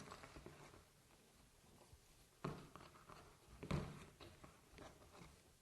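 Faint handling sounds of picture-hanging wire being worked at the frame's back, with two soft knocks about two and a half and three and a half seconds in.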